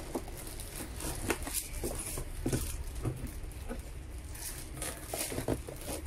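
Clear plastic bag crinkling and rustling as a wrapped power tool is pushed into and lifted out of a cardboard box, with scattered light knocks and scrapes against the cardboard.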